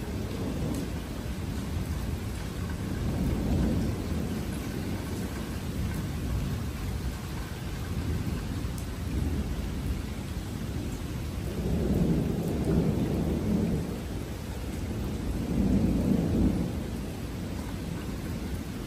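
Thunder rumbling in long, low rolls that swell about three seconds in, again around twelve seconds and once more around sixteen seconds, over a steady hiss of rain.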